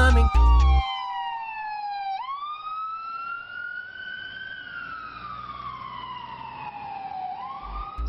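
Emergency-vehicle siren in a slow wail: the pitch falls, jumps back up about two seconds in, climbs slowly, falls over several seconds, then starts to rise again near the end.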